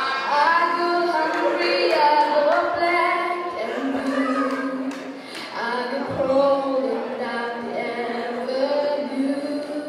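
A young boy singing into a handheld microphone in a high, unbroken voice, holding long notes one after another.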